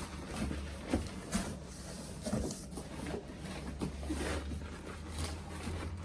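Cardboard box and packaging being handled: scattered faint knocks, scrapes and rustles over a low rumble.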